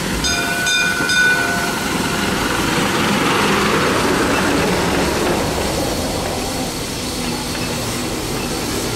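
Brass bell on a vintage fire engine struck about three times, ringing on for a moment. Then the old appliance's engine passes close, loudest a few seconds in and fading, with the next vintage appliance's engine following behind.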